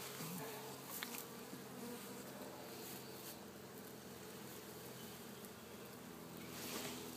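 Honeybees from an opened hive buzzing in a steady, many-voiced hum, with a few faint knocks from the hive parts being handled.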